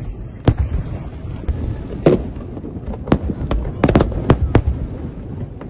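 Fireworks show: aerial firework shells bursting in a series of sharp bangs, several in quick succession about four seconds in, over a low continuous rumble.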